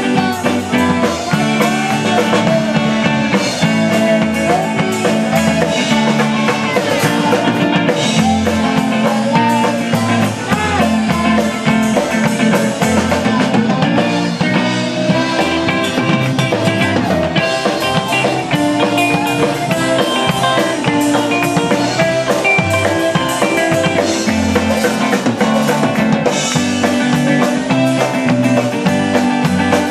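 A live rock band playing: drum kit, electric and acoustic guitars and bass guitar.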